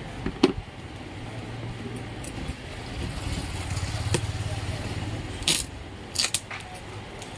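A phone's retail box and packaging being handled by hand: a sharp tap about half a second in, a click near four seconds, then a few short rustling scrapes, over a steady low hum.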